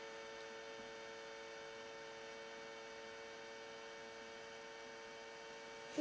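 Makita battery charger humming steadily while charging a cordless vacuum battery, a held hum made of several steady tones; the noise is the sign that it is charging.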